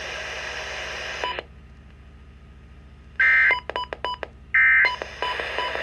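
Two short, loud bursts of Emergency Alert System SAME data tones over a radio, about a second and a half apart, with their burst length typical of the end-of-message code. Radio hiss and clicking come before and between them.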